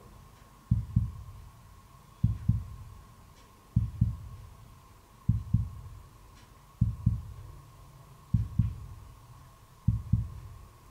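Slow heartbeat sound effect: pairs of low thumps, lub-dub, repeating about every one and a half seconds, seven beats in all.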